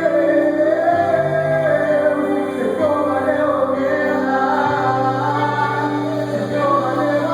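Live gospel worship music: singers hold long, wavering notes over a band's sustained low notes.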